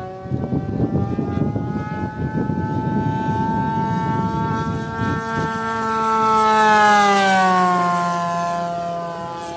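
Radio-controlled model Corsair plane flying past: a steady propeller whine that grows louder, peaks about seven seconds in, then drops in pitch as it passes by. A low gusty rumble runs under the first half.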